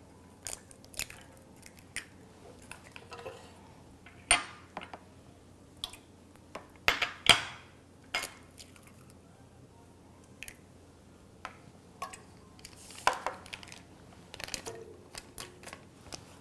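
Kitchen containers being handled and set down on a countertop: scattered light clinks and knocks of a metal bread-machine pan and small glass ingredient jars, a few louder knocks among them, with quiet stretches between.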